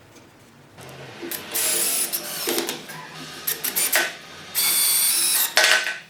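A small power tool's motor running in two short bursts, about a second and a half in and again about a second before the end, with clatter of handling in between.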